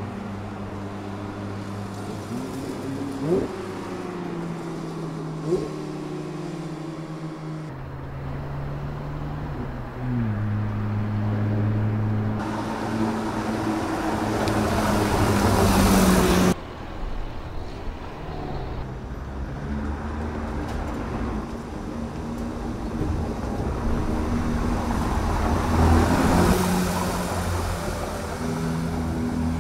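Naturally aspirated 4.0-litre flat-six of a 2019 Porsche 911 Speedster running on the road, its engine note shifting in pitch from shot to shot, with two short sharp sounds in the first few seconds. Just past the middle it builds louder for a few seconds and then cuts off abruptly, and it swells again near the end.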